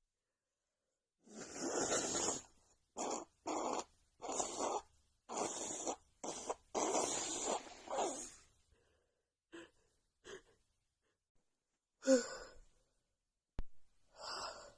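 A woman sniffling and breathing noisily through a runny nose: a run of short breathy bursts, some longer, then a few fainter ones, with one sharp click near the end.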